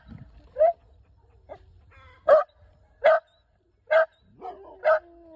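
Dog barking: five short, sharp barks, roughly one a second, with a faint whine in among the last two.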